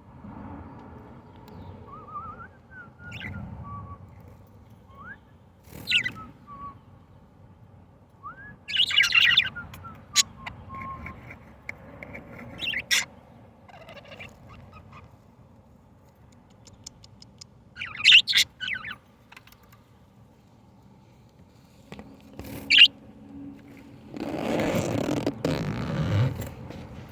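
Pet budgerigars giving short, sharp chirps now and then, about half a dozen spaced several seconds apart, with a spell of rustling near the end.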